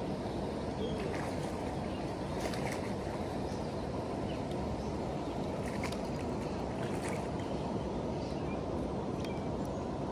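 Steady rushing of a fast, high river current, an even low noise, with a few faint ticks and chirps above it.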